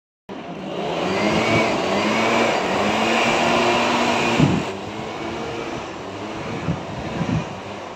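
A motor vehicle's engine running close by, loud for the first half and then dropping to a lower steady drone, with a few light knocks near the end.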